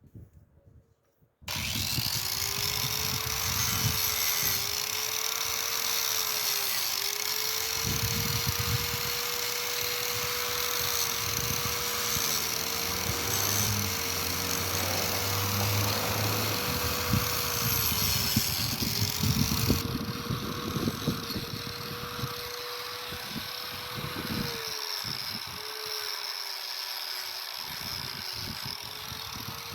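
Angle grinder starting about a second and a half in and cutting out the mortar from brick joints. Its motor pitch sags again and again as the wheel bites into the mortar and recovers as it eases off, over a steady hiss of grinding.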